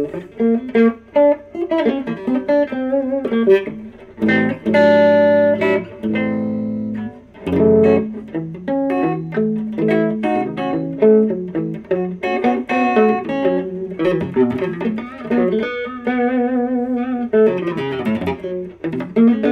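Epiphone Wilshire P90 Reissue electric guitar played clean on its neck P90 pickup with the controls at noon: a run of picked single notes and chords, with held notes shaken in vibrato near the end.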